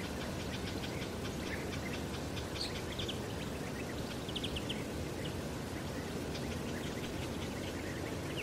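Small birds chirping in short quick runs over a steady low rumble.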